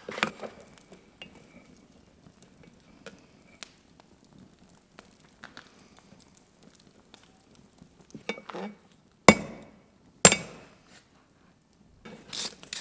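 Hammer blows on hot steel on an anvil. Light clinks of tools being handled come first, then two hard blows about nine and ten seconds in, each with a short ring, and a quick run of strikes starts just before the end.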